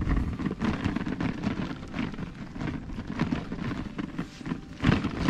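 Wind buffeting an action camera's microphone: an uneven rumbling and crackling noise, with a louder thump near the end.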